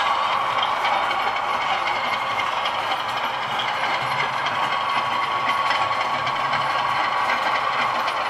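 OO gauge model Class 37 diesel's DCC sound decoder playing a steady English Electric diesel engine sound through the loco's small speaker as it runs slowly forward.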